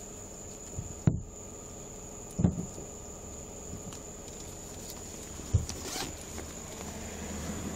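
Rustling and handling noises with three sharp knocks, about a second, two and a half seconds and five and a half seconds in; a low hum swells near the end.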